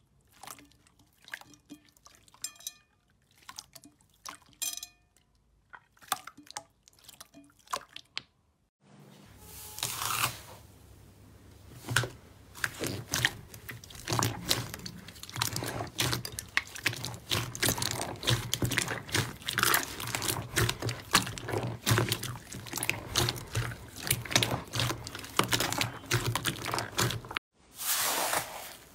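Hands squeezing and kneading slime in a bowl. At first there are scattered wet pops and sticky clicks. From about nine seconds in comes a denser, continuous run of squelching and crackling over a low steady hum.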